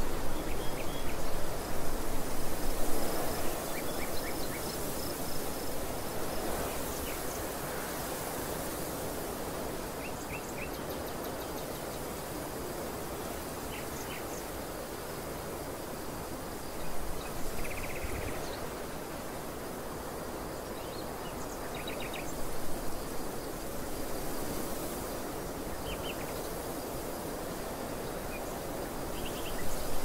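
Outdoor field ambience: steady wind noise with gusts, strongest in the first few seconds, and short high chirps from small birds every few seconds, over a faint steady high tone.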